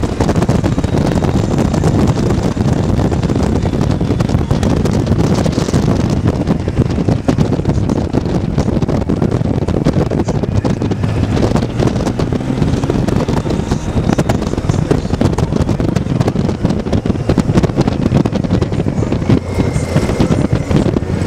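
Wind rushing over the microphone on a riding Honda Gold Wing motorcycle, with the motorcycle's engine and road noise as a steady low rumble underneath.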